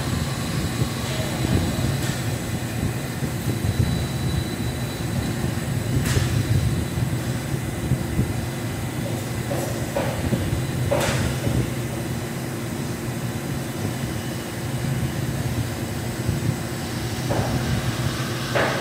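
Commercial kitchen exhaust hood fan running with a steady low rumble, with a few sharp knocks of utensils against metal.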